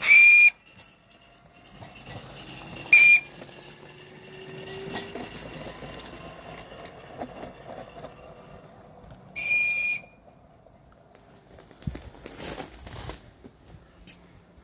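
Small live-steam garden-railway locomotive's steam whistle, blown in three short, high-pitched blasts: one at the start, a briefer one about three seconds in, and one about nine and a half seconds in. A short rushing hiss follows about twelve seconds in.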